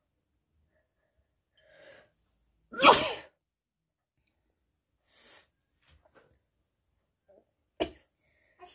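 A person sneezing: a faint breath in, then a loud voiced sneeze about three seconds in. A breathy intake follows, then a second, shorter and sharper sneeze near the end.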